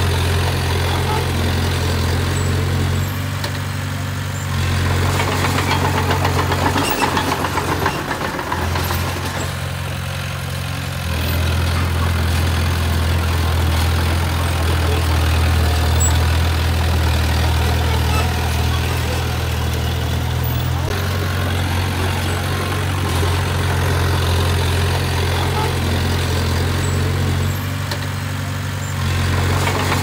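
Bulldozer's diesel engine running steadily with a low drone, growing louder and easing off several times.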